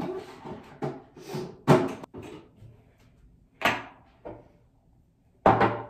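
Several sharp knocks and clatters, a few seconds apart, of a bathroom drawer or cabinet being opened and shut and products being moved while rummaging for the next item.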